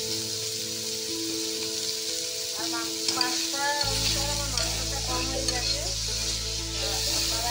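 Chicken pieces sizzling as they fry in oil in a metal kadai, with a spatula stirring them and scraping the pan from about two and a half seconds in.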